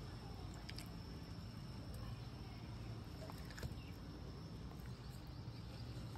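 Faint background with a low hum and a thin, steady high-pitched whine, broken by a few soft clicks as marinated pangas fish pieces are laid into a kadai.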